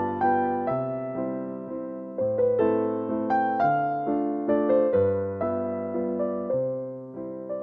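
Background piano music, slow notes struck one after another and left to fade.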